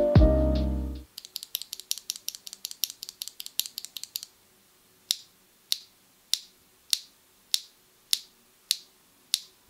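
Mechanical keyboard fitted with HMX Lotus factory-lubed linear switches being typed on: a fast run of keystrokes for about three seconds, then eight single keypresses a little over half a second apart. Lofi background music stops about a second in.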